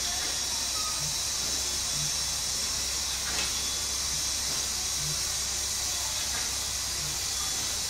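Steady hiss of escaping steam from the steam locomotive 475.111, with faint low thuds about once a second.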